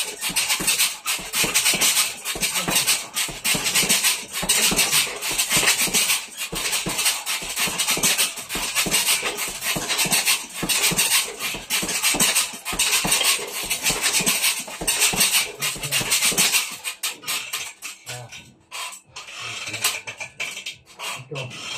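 Gloved punches landing on a hanging heavy bag in a fast, continuous flurry of thuds, stopping about three-quarters of the way through.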